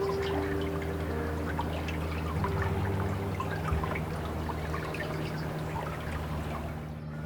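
Soft ambient music of held low chords layered over trickling, dripping water. The sound dips briefly near the end.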